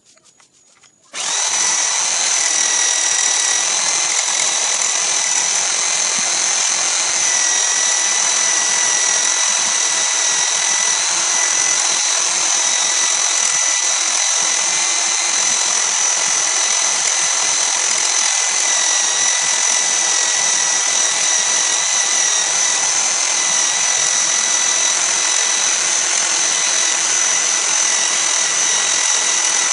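Electric power-tool motor driving a homemade wood lathe switches on about a second in and runs at a steady high whine, with a hand-held cutter shaving the spinning wooden workpiece.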